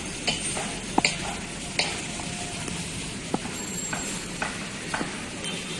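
Open-air ambience: a steady crackly hiss broken by scattered sharp ticks and short high chirps, roughly one every half second to a second.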